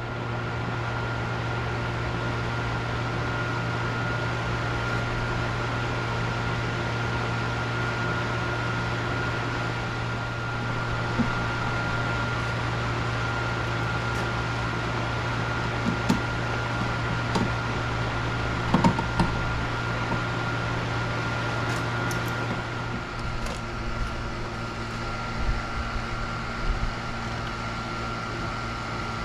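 A steady mechanical hum, like a fan or motor running, with a handful of short knocks and clicks scattered through the middle.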